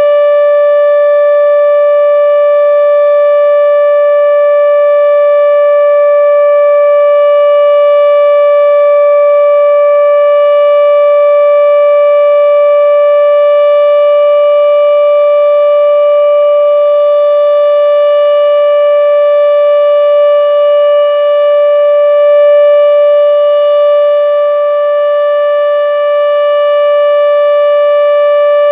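Federal Signal RSH-10B outdoor warning siren sounding a loud, steady tone held at full pitch without rising or falling, dipping slightly in level about twenty seconds in.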